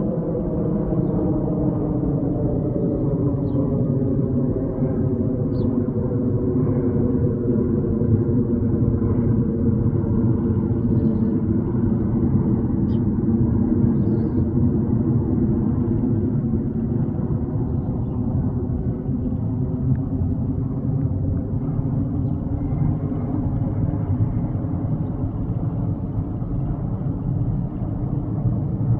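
A steady engine rumble whose tones slowly drop in pitch over the first half and climb again near the end.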